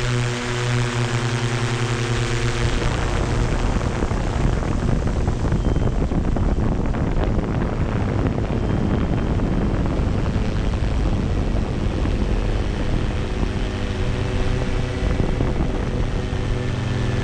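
DJI Phantom 2 quadcopter's propellers picked up by the camera on board, a steady hum with several fixed tones. About three seconds in it gives way to a loud, even rushing of rotor wash and wind on the microphone, and the steady tones come back near the end.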